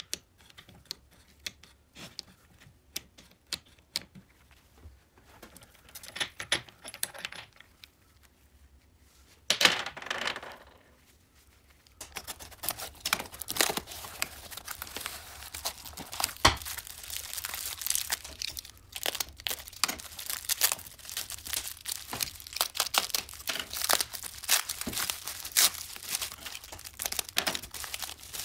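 Scattered light metal clicks and taps as a dismantled motorcycle engine crankcase is handled, with a short rush of noise about ten seconds in. From about twelve seconds in comes steady rustling and crinkling of cardboard boxes and plastic bubble wrap as new engine parts are unpacked.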